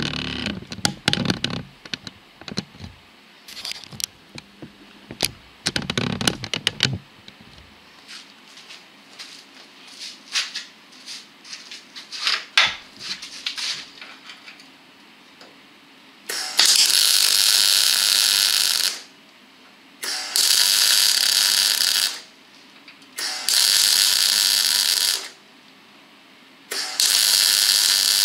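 MIG welder arc crackling in four steady runs of about two seconds each, beginning a little past halfway, as steel outrigger is welded to the chassis rail. Before the welding, scattered knocks and clicks.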